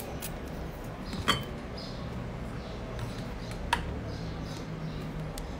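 Two light, sharp clicks, about a second in and again near four seconds, with a few fainter ticks over a low, steady hum.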